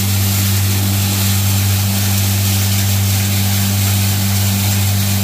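Bo'ron electric grain crushers running and grinding grain into feed meal: a steady, loud, deep motor hum with an even hiss of milling over it.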